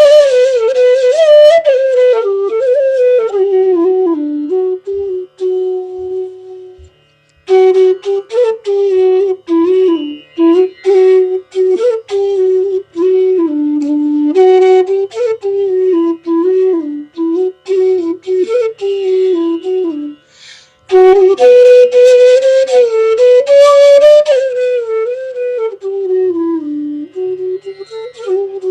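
Bansuri, the North Indian bamboo flute, playing a slow solo melody with gliding ornaments between notes. It pauses for breath about seven seconds in and again about twenty seconds in.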